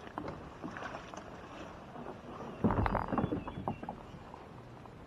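Plastic kayak hull being dragged and bumped along a dirt bank, with a cluster of scrapes and knocks a little past halfway and smaller knocks around it.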